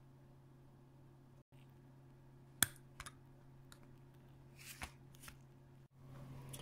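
Flush cutters snipping component leads on a circuit board: one sharp snip a little under three seconds in, then a few lighter clicks, over a faint steady hum.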